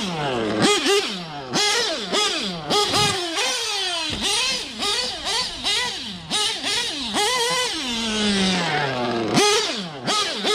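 Novarossi .25 two-stroke nitro engine in a TLR 8X-T truggy revving hard and dropping back about twice a second as the throttle is blipped. Near the end it holds one longer pull before falling off. The engine is new and still being broken in.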